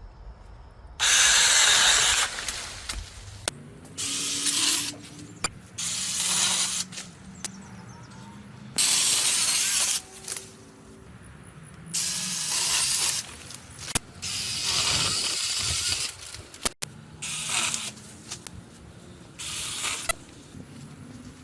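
Small battery-powered 12V mini chainsaw run in about eight short bursts of a second or two each, cutting through light branches, with quieter pauses between the bursts.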